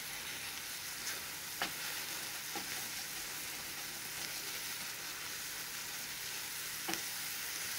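Apple pie filling (chopped apples in butter, brown sugar and water) sizzling steadily in a stainless steel frying pan as it is stirred with a wooden spoon, with a few light knocks of the spoon against the pan.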